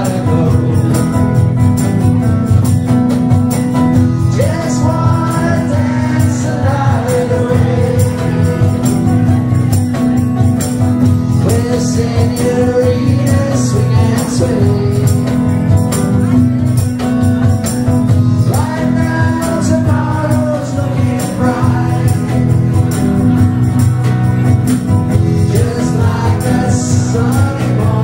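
Live song: a man sings over electric guitar, with a woman's voice joining and a small hand tambourine jingling along.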